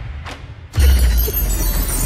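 Soundtrack music; a little under a second in, a sudden loud, deep hit comes in and the music carries on loud after it.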